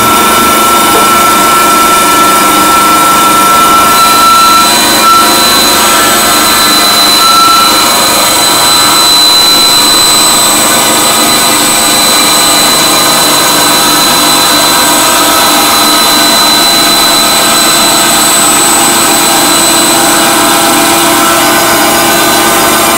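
Emco Swing band saw running loud and steady while cutting a thin sheet fed by hand, with high steady tones that come in and fade out as the cut goes on.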